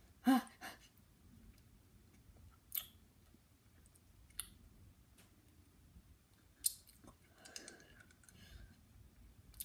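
Mouth sounds from sucking a very sour hard candy: a short vocal grunt near the start, then a few sharp lip and tongue clicks and smacks spaced a second or two apart.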